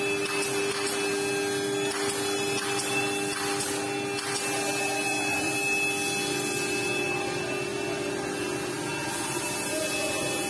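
Five-axis CNC router with a lathe axis machining a turning wooden workpiece: the spindle cutting steadily, a whine of several held tones over the hiss of the cut.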